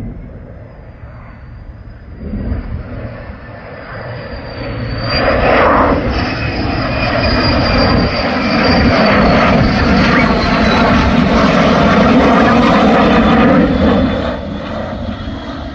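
Fighter jet flying past overhead. Its engine noise builds about five seconds in, stays loud, then fades near the end, with a high whine that slowly falls in pitch as it goes by.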